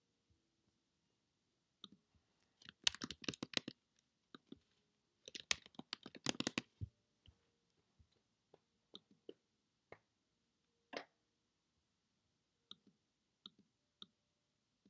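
Computer keyboard typing, faint: two quick runs of keystrokes about three and six seconds in, then scattered single clicks.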